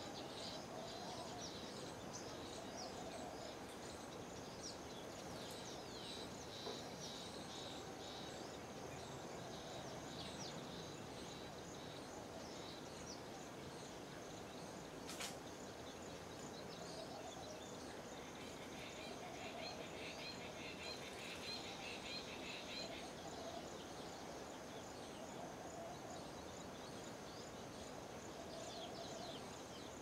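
Many birds chirping and twittering, faintly, over a steady background hiss, with a denser burst of chatter a little past the middle and a single sharp click about halfway through.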